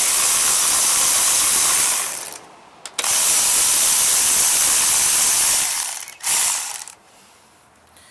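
Ratchet wrench running in two spells of about two and three seconds, with a short burst after, backing out 10 mm bolts on a Kohler lawnmower engine.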